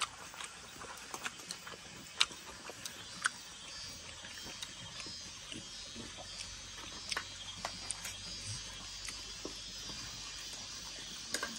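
Quiet eating sounds at a shared meal: chewing, with scattered light clicks of spoons and dishes. Faint, steady insect chirping comes in from a few seconds in.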